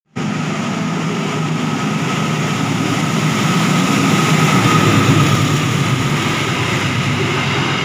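Diesel locomotive and its passenger coaches passing close by at speed, the engine running and wheels rolling on the rails, growing a little louder as the train goes past.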